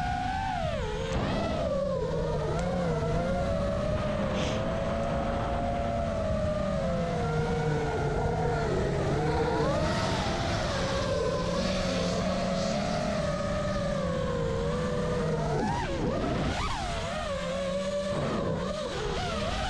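iFlight Nazgul 5 FPV quadcopter's motors and propellers whining, the pitch rising and falling constantly with the throttle, with a few sharp swings near the end.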